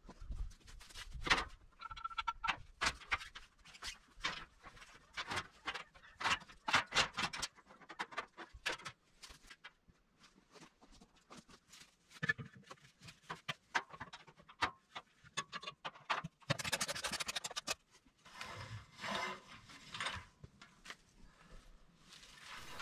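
Ratchet tie-down straps and their metal hooks being worked on a utility trailer: irregular clicks, clinks and rattles, with a denser rasping run of rapid clicking about two-thirds of the way in.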